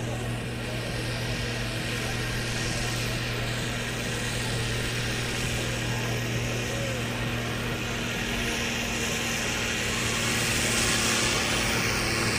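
Case IH 1255 XL six-cylinder diesel tractor engine working under full load as it drags a tractor-pulling brake sled. It holds one steady low note and grows a little louder in the last couple of seconds.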